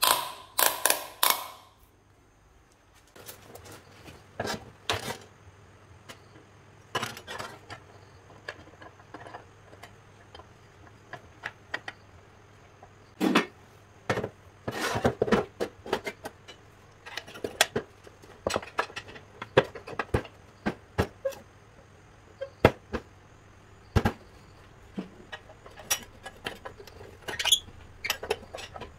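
Scattered knocks, clicks and short scrapes as a cast aluminium scooter transmission cover and metal parts are handled and set down on a hard work surface, with three loud clatters close together in the first second or two.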